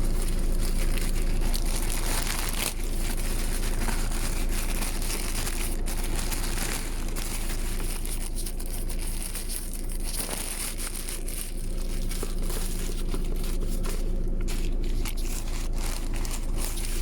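Packaging being unwrapped by hand: plastic wrapping crinkling and tearing in an irregular run of rustles, over a steady low hum.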